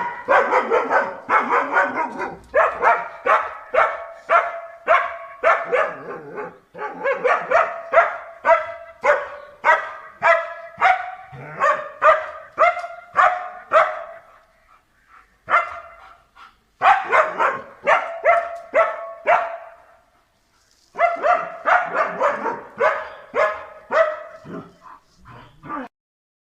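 A dog barking over and over, about two barks a second, in three runs with short pauses about halfway through and again near the end.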